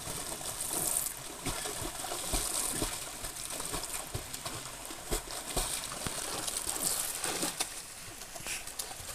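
Swimmers kicking and stroking in river water, splashing in repeated uneven bursts.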